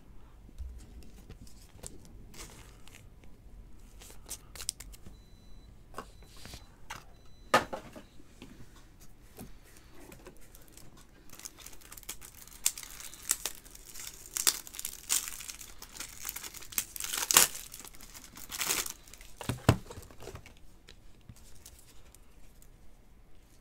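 Plastic crinkling and light clicks from hands handling a trading card with a clear plastic sleeve and rigid top loader, scattered at first, then a denser run of crinkling about halfway through that lasts several seconds.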